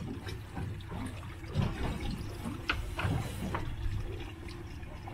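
Water slapping and sloshing against the hull of a drifting boat in uneven splashes, with the strongest slaps about a second and a half in and near the middle.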